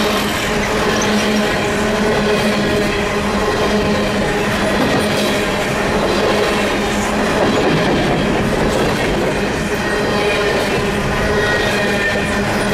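Canadian Pacific freight train rolling past with the steady clatter of steel wheels on the rails. Several steady high-pitched tones of wheel squeal ride over the clatter as the cars take the sharp curves.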